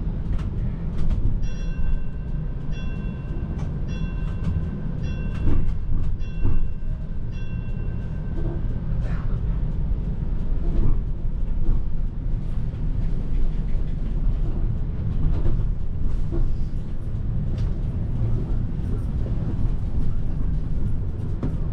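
TTC streetcar running along the rails, heard from inside: a steady low rumble with scattered knocks and clacks from the track. Near the start a repeated electronic beeping sounds for several seconds.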